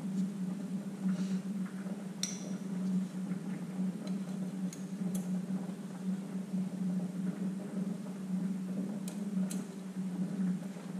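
A steady low hum, with a few light clicks and clinks of small engine parts handled by hand: one about two seconds in, one around five seconds, and two close together near the end.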